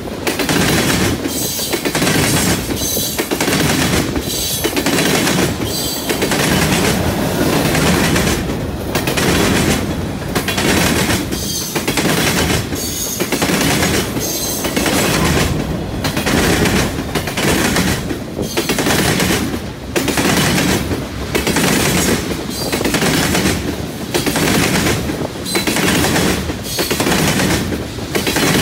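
Freight train tank cars and covered hoppers rolling past close by, their steel wheels clattering over the rails and a junction switch in a steady repeating rhythm as each truck passes.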